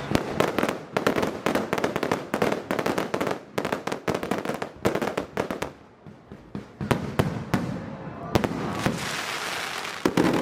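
Fireworks going off in rapid volleys of sharp bangs and crackles, with a brief lull about six seconds in before more bangs follow.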